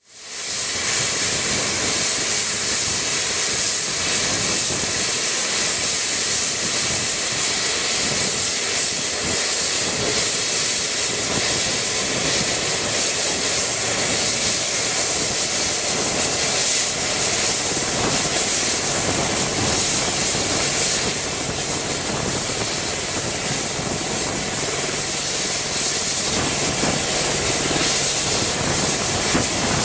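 AH-64D Apache attack helicopter running on the ground, its twin turboshaft engines giving a steady high-pitched whine as the main and tail rotors turn. The sound fades in at the very start.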